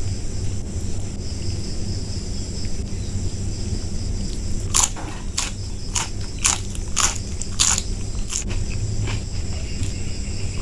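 A person chewing a mouthful of food with loud crunches, about seven of them in quick succession midway through.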